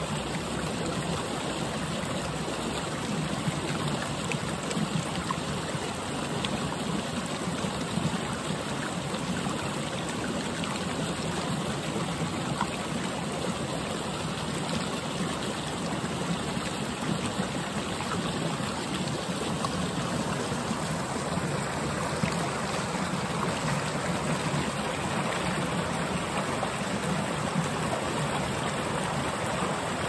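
Shallow, partly frozen mountain river running over rocks beneath shelves of ice: a steady rush of flowing water.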